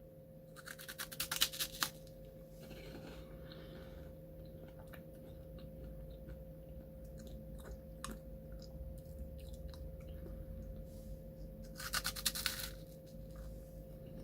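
Chewing and crunching of an Umaibo puffed corn stick snack, with two short bursts of crunching about a second in and near the end and soft chewing clicks between. A faint steady hum runs underneath.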